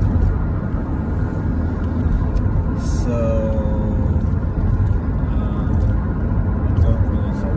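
Steady low road and engine rumble inside a moving car's cabin at highway speed. A brief steady tone sounds for about a second, about three seconds in.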